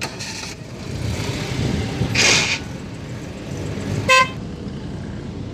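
Street and workshop background rumble, with a half-second hissing burst about two seconds in and a short vehicle horn toot about four seconds in.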